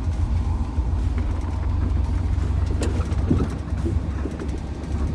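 K20 plow truck's engine running steadily under load while plowing snow, a deep low rumble, with a sharp click about three seconds in and a few short creaks just after it.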